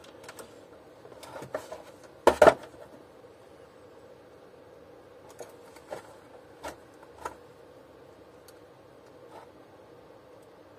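Scattered clicks and small knocks of hand work with a screwdriver on a vacuum cleaner motor's wire connectors and plastic housing, with a loud double knock about two seconds in and a few lighter clicks later.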